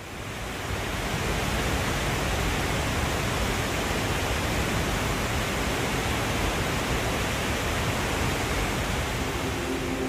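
Waterfall's falling water, a steady rushing noise that fades in over the first second. Music begins faintly near the end.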